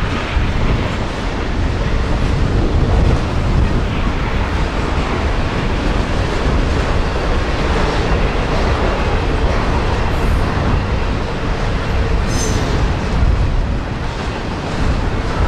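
Freight train cars rolling past on the rails, a steady, loud noise throughout.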